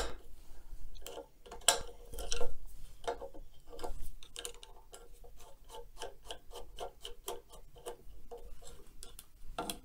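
A screw being backed out of the light fixture of a 1936 Singer 128 sewing machine with a screwdriver. A few scattered knocks and scrapes come first, then a run of small sharp clicks at about four a second.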